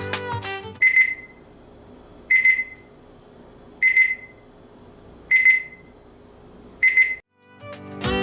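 Alarm beeper of an ETI ThermaGuard 102 digital fridge-freezer thermometer sounding five high-pitched double beeps, about a second and a half apart. This is its alarm for a temperature past the set high or low limit. Background music plays before the beeps begin and comes back near the end.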